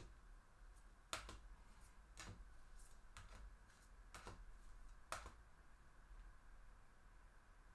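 Near silence with a few light, sharp clicks, about one a second over the first five seconds or so, from small hard objects being handled.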